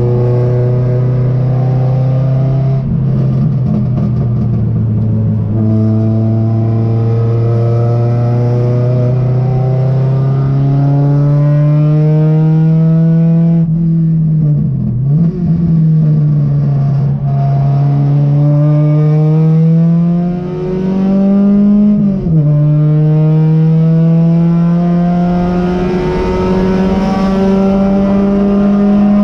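Race car's engine heard from inside the cockpit at full racing pace, loud and constant. Its pitch climbs steadily under acceleration, falls back about five seconds in, dips sharply around the middle, and drops with quick wavers a little after two-thirds through before climbing again.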